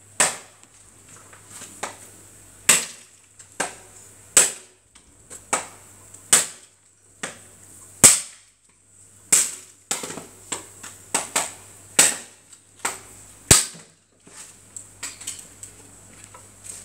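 A series of sharp cracks or knocks at irregular intervals, roughly one every second, with a faint steady low hum underneath.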